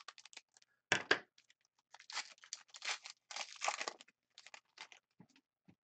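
Scissors cutting open a foil trading-card pack, with the sharpest snips about a second in, followed by the foil wrapper crinkling and rustling as the cards are pulled out.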